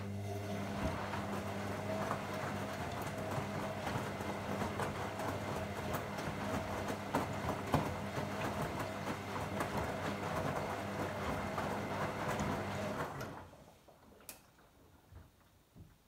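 Beko WM5122S washing machine turning its drum during the rinse: the motor hums steadily while the wet laundry and water slosh and tumble inside. The motor stops about 13 seconds in, leaving a few faint clicks.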